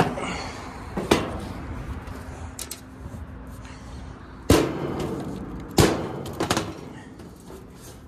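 Sheet-metal knocks and clanks from the service access panel of a Ruud/Rheem outdoor AC condenser as it is handled and pulled off. There are about five sharp knocks, the two loudest a little past the middle.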